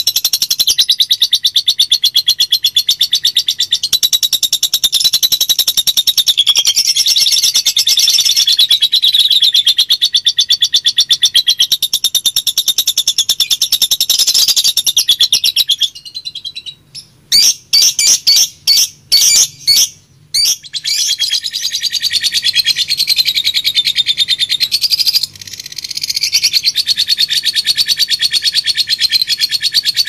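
Lovebird chattering in a long, rapid, high-pitched trill, the extended 'ngekek' song. About halfway through, the chatter stops and gives way to a string of short separate calls for a few seconds, then the continuous chatter resumes.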